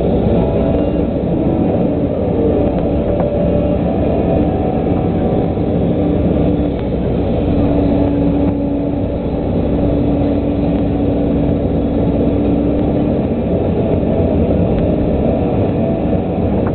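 Volvo EC140 LC tracked excavator's diesel engine running steadily under load as the machine swings, digs peat and swings back, heard from inside the cab. A steady tone rides over the engine from about halfway in until a few seconds before the end.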